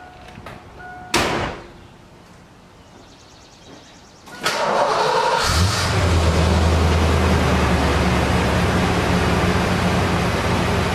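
1988 Ford Mustang GT's 5.0-liter (302) V8 cranked by the starter for about a second, catching, and settling into a steady idle through the exhaust. Before the start there are two short beeps and a single loud thump about a second in.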